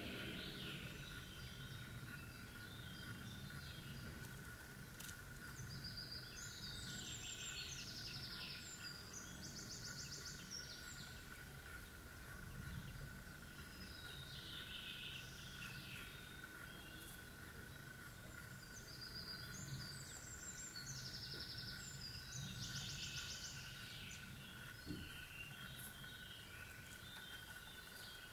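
Faint outdoor ambience: a songbird sings in the background in two bouts of quick, varied high phrases, over a steady faint whine and a low rumble.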